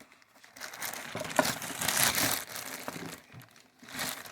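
Packing material crinkling and rustling as hands rummage through the contents of a shipping box, with a dense stretch of rustling and a shorter burst near the end.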